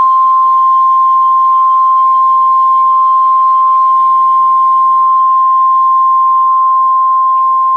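NOAA Weather Radio 1050 Hz warning alarm tone: one loud, steady high tone with no change in pitch. It is the signal that a warning is about to be read, here a severe thunderstorm warning.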